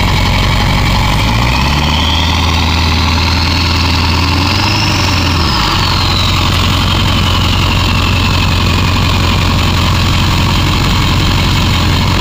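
Ford 7.3 Powerstroke turbodiesel V8 pickup engine pulling hard on a tow strap, revving up about a second in and easing back about halfway through, then running steadily. A high turbo whine climbs along with the revs and then slowly fades.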